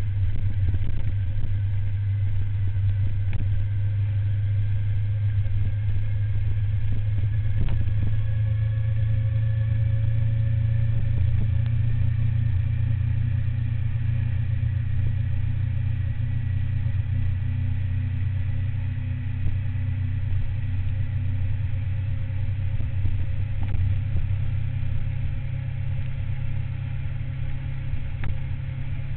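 Suzuki SV1000N's 90-degree V-twin engine running under way at road speed, with a steady low rumble; its pitch climbs slightly about ten seconds in, then holds.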